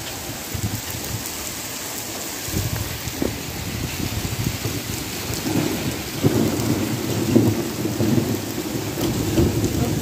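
Heavy rain falling steadily, with a low rumble of thunder that builds about halfway through.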